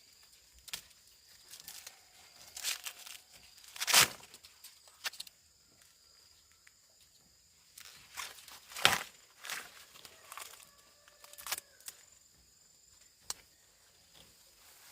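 Dry plant material crackling and tearing in irregular bursts, with two louder snaps about four and nine seconds in.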